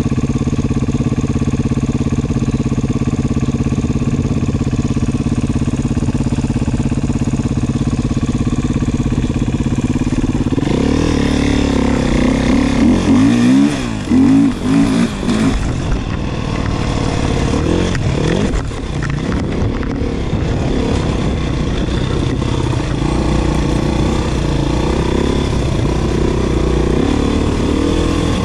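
Beta 500 RR dirt bike's single-cylinder four-stroke engine idling steadily for about ten seconds, then revving up and down and pulling away, its pitch rising and falling as it runs on.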